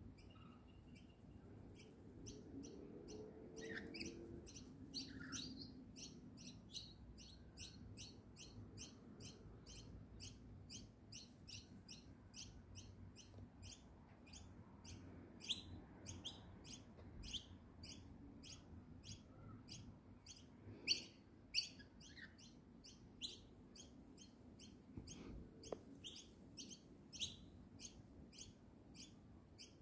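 Lorikeets giving rapid, high-pitched chirps, about three a second, faint and continuous from about two seconds in.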